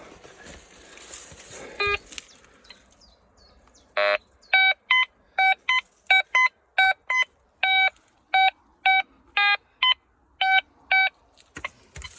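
Metal detector giving a rapid series of short, pitched beeps, two to three a second, the audio signal of a metal target under the coil. It opens with one longer tone and follows a few seconds of rustling.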